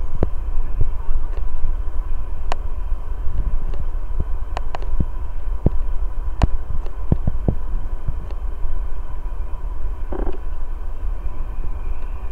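Boeing 747-400's four Rolls-Royce RB211 jet engines running at taxi power: a heavy low rumble with a steady whine. Scattered sharp clicks throughout.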